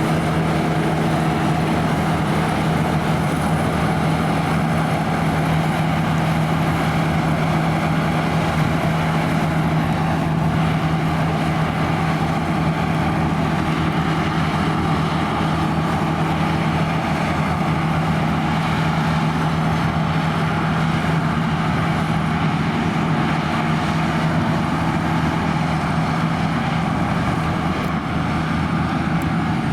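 Claas Lexion 580 Terra-Trac combine harvester running steadily while combining barley: a constant engine and machinery drone that holds one pitch throughout.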